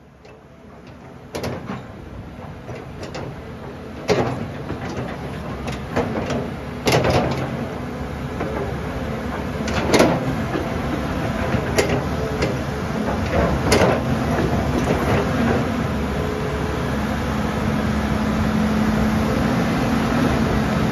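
Caterpillar 320D hydraulic excavator running, with its boom being worked. The machine noise builds up over the first few seconds and is broken by sharp clunks every two to three seconds through the first two-thirds. A steady hum sets in near the end.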